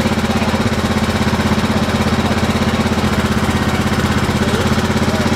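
Small engine of a ride-on kiddie train running steadily close by, with a fast, even pulse.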